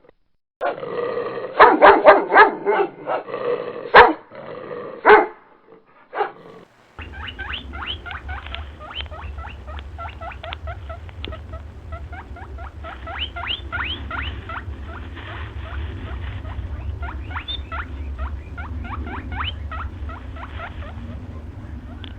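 A dog barking loudly in a burst of several barks over the first six seconds. Then a different animal takes over with a long run of quick, short rising squeaks over a steady low hum.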